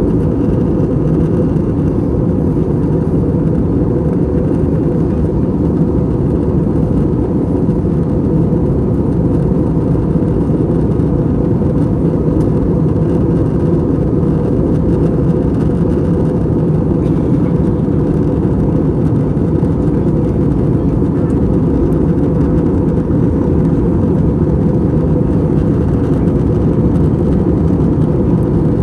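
Steady in-flight cabin noise of an Airbus A321 with IAE V2500 engines: an even, deep rush of airflow and engine drone, with a faint steady whine above it.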